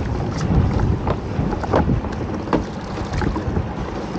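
Wind buffeting the microphone over water lapping against a small boat, with a run of short knocks and splashes, a bit more than one a second, as a lobster pot is hauled up by its rope over the side.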